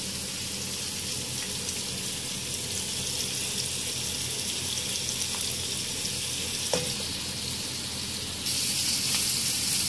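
Sliced onions sizzling in hot oil in a wok: a steady frying hiss that grows louder near the end.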